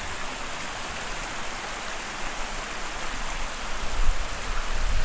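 Small stream running: a steady rush of water that grows a little louder near the end.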